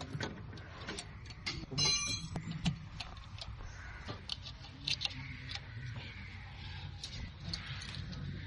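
Scattered light clicks and taps over a low steady hum, with a short electronic beep about two seconds in.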